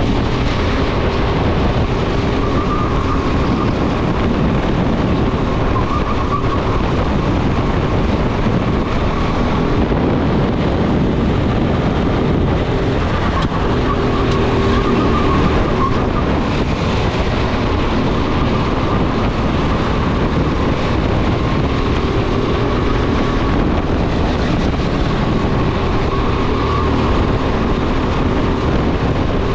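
Go-kart engine running hard at racing speed, its note rising and falling every few seconds through the corners, with wind buffeting the onboard microphone.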